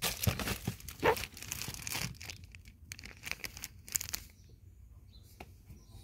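A plastic-wrapped carbon cabin air filter being pulled out of its cardboard box: tearing and crinkling of cardboard and plastic wrap, densest over the first two seconds, with a few more rustles in the middle before it goes quieter.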